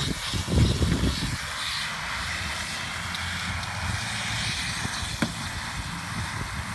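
Garden hose pistol-grip spray nozzle spraying water onto wet rabbit hides: a steady hiss. Low rumbling thumps in the first second and a half, and a single sharp click about five seconds in.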